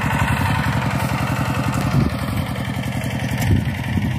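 Engine of a two-wheel hand tractor (walk-behind plough) running steadily as it ploughs the soil, a rapid, even chugging, with two brief rises in pitch about two and three and a half seconds in.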